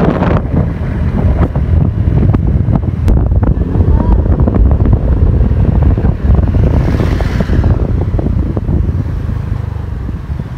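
Wind buffeting the microphone over the low rumble of a moving vehicle, easing off near the end.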